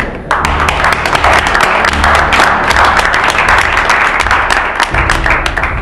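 A small group of people applauding, starting suddenly just after the beginning and keeping on steadily.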